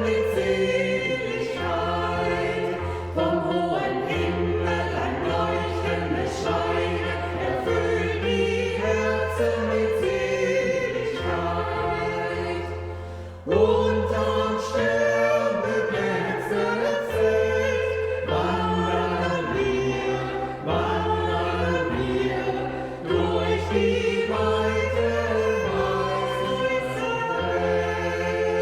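Choir singing a Christmas song over a steady low bass accompaniment; the sound drops away briefly about halfway through and the singing comes straight back in.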